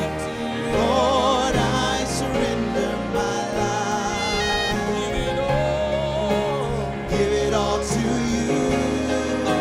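Male gospel soloist singing into a microphone with a wide vibrato, over sustained piano chords.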